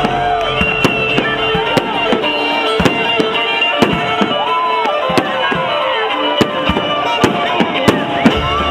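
Fireworks going off in many sharp, irregular bangs, several a second, over music with a melody.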